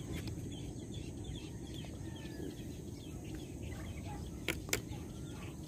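Wind rumbling on the microphone, with faint bird calls in the background and two sharp clicks close together near the end.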